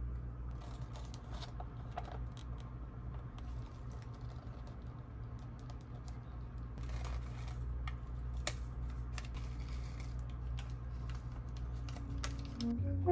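Irregular light clicks and taps, spaced unevenly, over a steady low hum.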